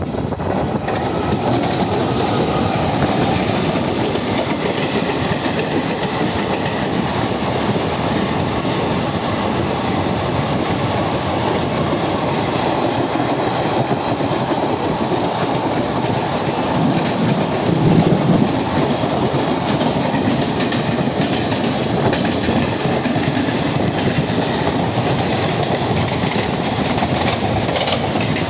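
Express passenger train running at speed, its wheels clattering steadily over the rail joints, with a brief swell in loudness about two-thirds of the way through.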